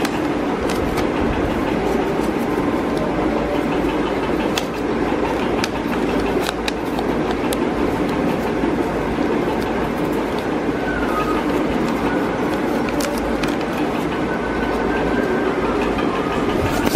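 A sheet of paper rustles and crackles with scattered sharp clicks as it is folded in the hands. Underneath runs a steady, loud rumbling noise.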